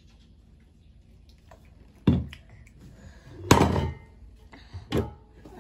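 Three hollow knocks and thuds as a toddler handles and sets down a plastic drink bottle and a plate on a wooden deck; the loudest comes about three and a half seconds in.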